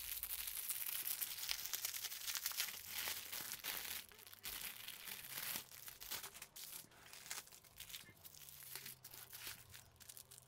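Clear plastic bags crinkling and crackling as packets of diamond-painting drills are handled and unwrapped by hand; dense for the first few seconds, then sparser.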